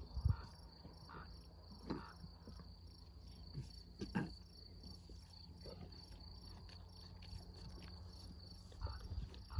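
Crickets chirping steadily in a high, even trill, with a few brief sounds of lions tearing and chewing raw meat, about two seconds in and again about four seconds in.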